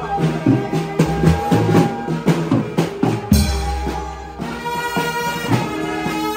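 Marching brass band playing: horns hold notes over snare drum, bass drum and cymbals. A heavy bass-drum stroke lands about three seconds in.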